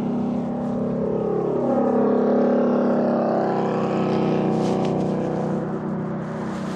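A motor vehicle's engine passing close by in highway traffic, its note dropping in pitch as it goes past, loudest about two seconds in, then fading.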